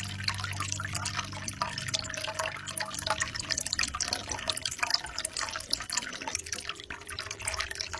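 Water trickling from a bamboo spout and splashing into a pond, a continuous patter of small drips and splashes. A low steady hum fades out about two or three seconds in.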